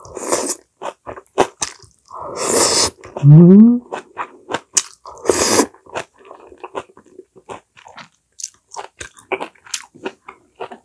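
Close-miked chewing of a mouthful of braised dried pollock with dried radish greens: a few loud mouth noises in the first six seconds, one with a short rising pitch about three seconds in, then a run of small wet clicks as she chews.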